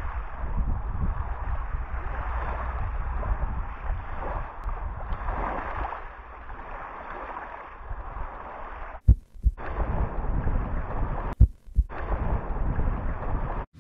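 Strong wind buffeting the camera microphone with a low rumble, over choppy waves washing against a grassy bank. The sound cuts out briefly twice, about nine and eleven and a half seconds in, with a sharp thump as it returns.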